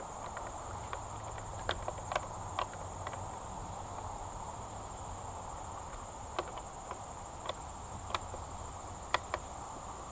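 A steady, high insect trill runs throughout, with scattered light clicks and taps.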